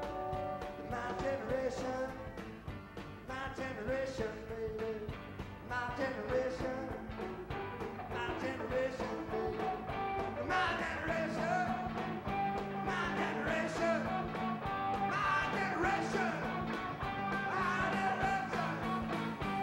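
Rock band playing live, with a male lead singer singing over the band.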